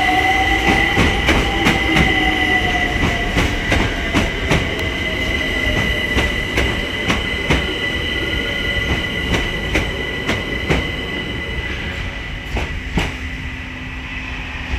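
A London Overground Class 378 electric train pulls away. There is a steady high squeal, a lower whine that rises and then slowly falls in pitch, and a run of clicks as the wheels cross the rail joints.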